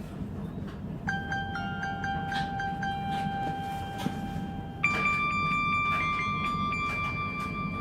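Phone ringtones. After about a second of low hiss, a ringtone of short high notes over one held note begins. About five seconds in, a different ringtone starts abruptly with long steady tones, all over a steady low hiss.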